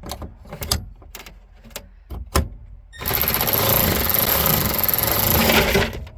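A few knocks and clicks of a tool on the fitting, then a power driver runs steadily for about three seconds with a fast rattle, backing out the last bolt of the old dash trim piece.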